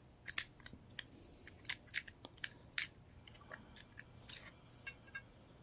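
Light, irregular plastic clicks and scrapes of fingers handling an opened car key fob, pushing its old CR2032 coin-cell battery out of the case.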